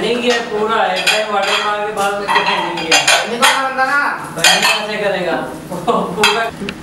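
Steel dishes and pans clinking and clattering as a large metal plate is washed at a sink, with several sharp clanks.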